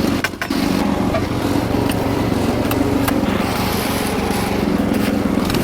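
Small engine of a Wood-Mizer LX55 portable band sawmill running steadily at an even pitch, with a short stutter just after the start.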